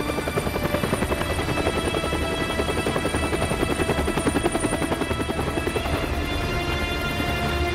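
Light helicopter flying overhead, its main rotor beating in a rapid, even chop, with a music score underneath.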